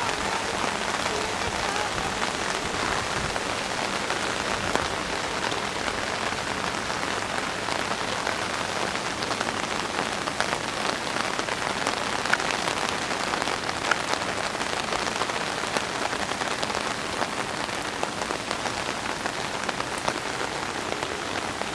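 Heavy rain falling steadily on surfaces, with scattered sharper drop ticks.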